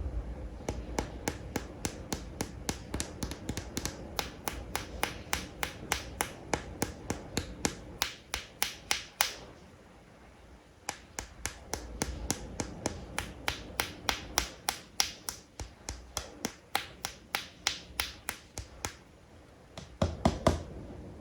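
Fingernails tapping on plastic animal toys: a long run of sharp clicks, about three to four a second, with a short pause midway and a quick cluster of taps near the end.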